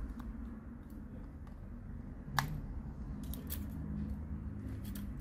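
Small metal tool clicking and scraping against a smartphone's mainboard and frame while the board is prised loose, with a sharp click about two and a half seconds in and a few quicker clicks after it, over a low background rumble.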